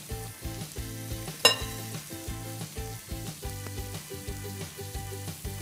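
Sliced onions sizzling in a hot grill pan, under background music with a steady beat. A single sharp clink about one and a half seconds in.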